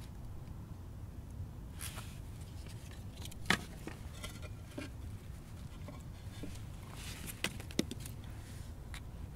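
Scattered knocks and scrapes of stones and clay pieces being set down by hand, the sharpest knock about three and a half seconds in and two more close together near the end, over a steady low rumble.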